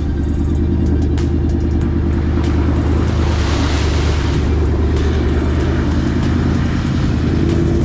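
Four-wheel-drive vehicle's engine running steadily at low revs, with a rush of noise swelling and fading about three to four seconds in.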